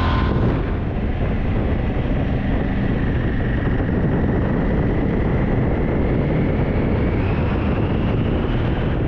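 Heavy wind noise on the microphone of a moving Aprilia Tuareg 660 adventure motorcycle, over the low drone of its parallel-twin engine. A faint whine rises slowly in pitch through the second half.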